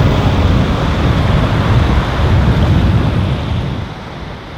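Sea waves washing onto a sandy beach, with wind rumbling on the microphone; the sound drops noticeably in level about four seconds in.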